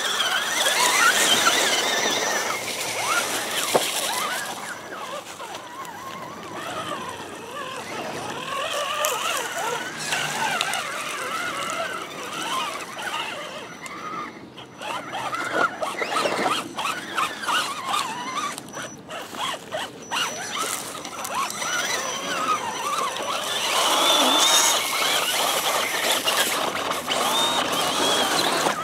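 Radio-controlled scale crawler trucks' electric motors and gear trains whining, the pitch rising and falling as the throttle is worked while they crawl through mud.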